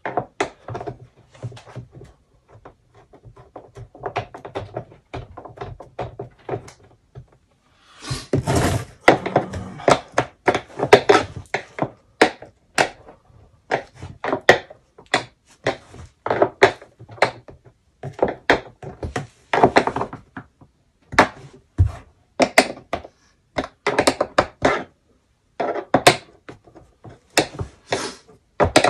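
Hard plastic knocks, clicks and thunks as the grey plastic drum housing of a Ridgid K9-204 drain-cleaning machine is handled and pressed together. The knocks are sparse and faint at first, then come thick and fast from about eight seconds in.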